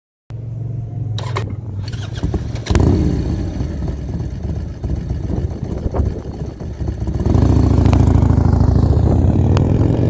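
Harley-Davidson Dyna Super Glide V-twin, a 95-inch high-compression big bore with 510 cams and an S&S Super E carburettor, running through a Supertrapp SuperMeg exhaust with 24 disks. It idles, then the bike pulls away slowly, the exhaust rising in uneven surges from about three seconds in and loudest over the last three seconds.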